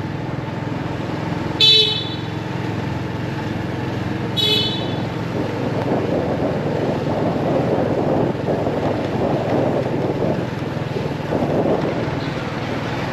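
Road traffic noise with two short, high-pitched vehicle horn toots about two seconds and four and a half seconds in, the second one fainter.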